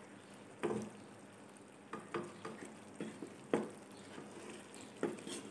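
Wooden spoon stirring thick mutton curry in a nonstick wok: several short scrapes and knocks against the pan over a faint sizzle.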